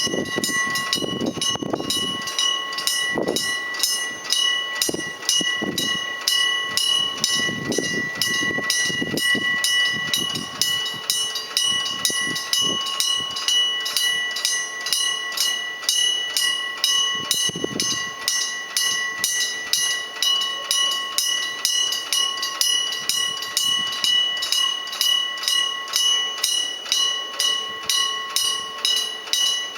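Electric-bell railway level crossing warning bell ringing continuously: a hammer striking the gong in a fast, even rhythm of about three to four strikes a second, the bell's tone ringing on between strikes.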